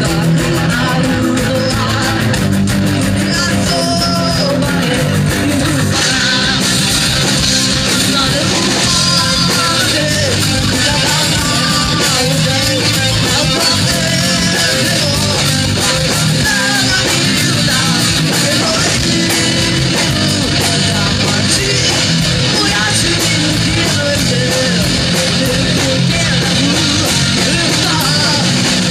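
Live rock band playing loud: distorted electric guitar, electric bass and a drum kit, with lead vocals sung into a microphone over the band.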